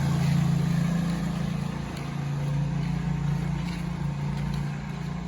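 Vehicle engine running steadily with a low hum, over a constant rush of tyre and road noise.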